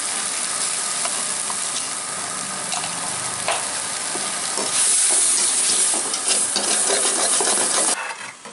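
Thick onion-tomato masala sizzling in a metal kadai while a slotted steel ladle stirs and scrapes it against the pan, so it does not catch on the bottom. The sizzle and scraping grow louder about five seconds in and stop suddenly near the end.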